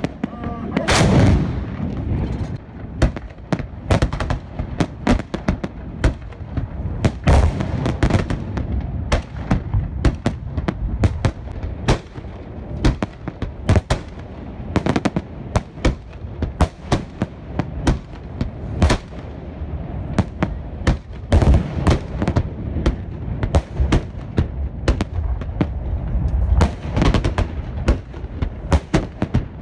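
Festive salute: salute guns booming and fireworks shells bursting overhead in a dense, irregular run of sharp bangs and crackles, with heavier booms every several seconds, the first about a second in.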